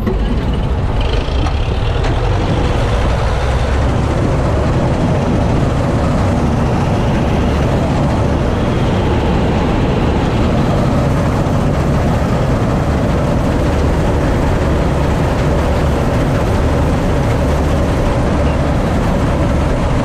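Massey Ferguson 86 combine harvester running steadily under the operator, its engine and threshing machinery going at a constant loud level as it works into the wheat.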